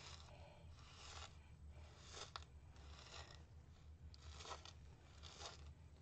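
Faint, intermittent scraping and crunching of a stir stick working wet sand and epoxy resin in a plastic mixing cup, with one sharp click a little over two seconds in.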